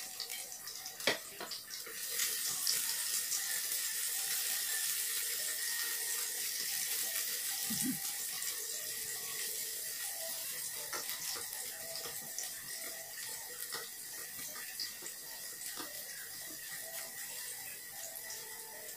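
Sliced garlic and ginger sizzling in hot oil in a small frying pan, a steady hiss that swells about two seconds in and slowly dies down, while chopsticks stir and tap in the pan.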